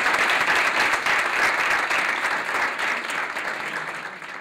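Audience applauding, dense at first and slowly dying down toward the end.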